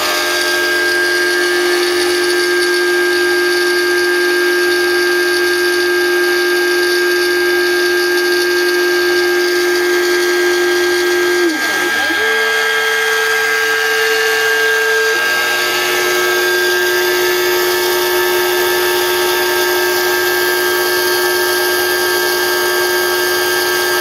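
Homemade CNC router engraving into Plexiglas: the spindle runs steadily over the hiss of the cut, under a steady whine from the axis drive motors. About halfway through the whine dips and glides back up to a higher pitch as the machine changes direction. It holds there for about three seconds, then drops back to its first pitch.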